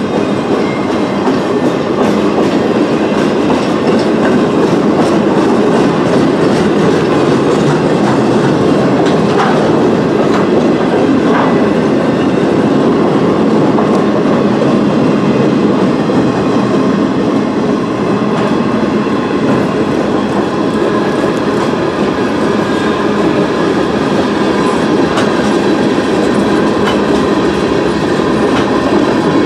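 Freight train cars rolling steadily past, wheels running over the rails: flatcars, then tank cars.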